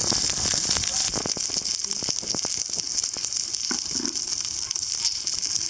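Pork and Brussels sprouts sizzling in a cast iron pan over a propane flame: a steady frying hiss with scattered pops and crackles.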